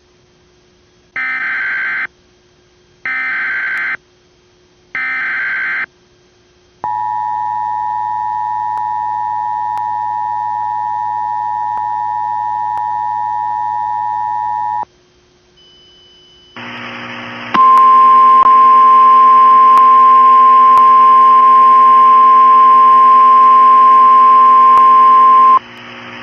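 Emergency Alert System activation: three short bursts of SAME header data, about a second each with a second between them, then the EAS two-tone attention signal held steady for about eight seconds. After a short gap, a second, louder steady single alert tone sounds for about eight seconds.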